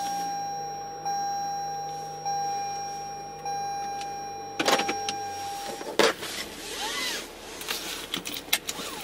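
Car's warning chime: one steady tone sounding again about every second, over the low hum of the engine, and stopping about six seconds in. A few sharp clicks and knocks follow.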